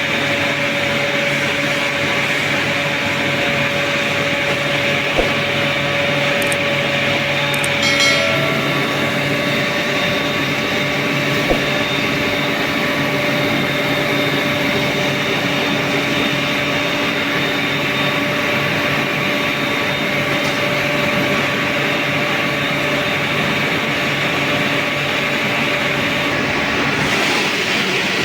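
Steady industrial machinery noise of a steel melting shop: a continuous roar with several steady hum tones, broken by a couple of sharp knocks and a brief ringing tone about eight seconds in.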